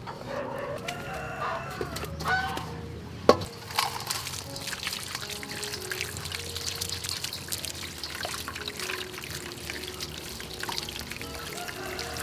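Tap water running and splashing onto beetroots in a metal bowl as hands rub them clean, a steady splashing. In the first few seconds a rooster crows, and there is a sharp knock about three seconds in.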